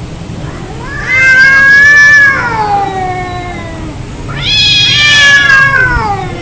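Cats yowling in a fight: two long, loud caterwauls, each rising and then sliding down in pitch, the second starting about halfway through.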